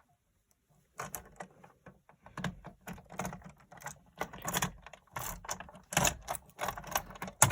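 Irregular clicks and clacks of a fire alarm pull station being handled, starting about a second in.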